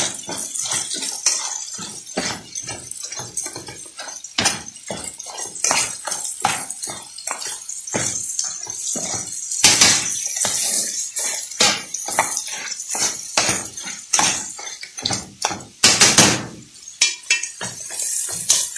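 Metal tongs stirring and turning whole crayfish in a steel pan: a quick, irregular run of clicks and knocks of metal against the pan and the hard shells.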